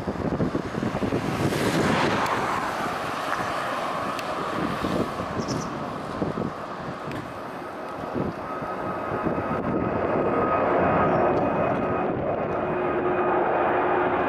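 Four-engine Airbus A380 jet airliner passing overhead, its engines giving a steady jet noise. About two seconds in, a high whine drops in pitch, and later steady engine tones sound over the noise. Wind rumbles on the microphone.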